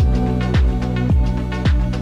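Background music with a steady beat: a deep electronic kick drum about twice a second under sustained synth chords.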